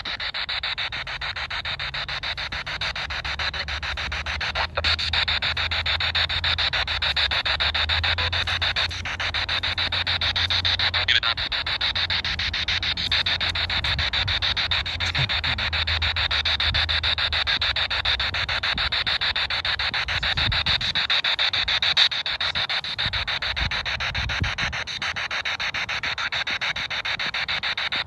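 Handheld spirit box sweeping through FM radio stations: a continuous rapid, choppy static hiss.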